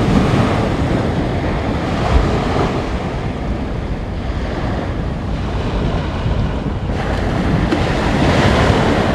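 Small sea waves breaking and washing up a sandy beach, with wind buffeting the microphone in a steady rumble.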